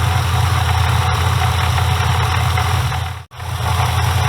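Supercharged LSA 6.2 L V8 idling with a rattling knock from the supercharger's spring-loaded isolator coupling, a common fault on early LSAs that calls for a solid coupling. The sound cuts out for an instant about three seconds in.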